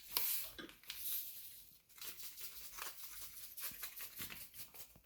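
Plastic packet of MSG crinkling and rustling in short, irregular bursts as it is opened and poured out.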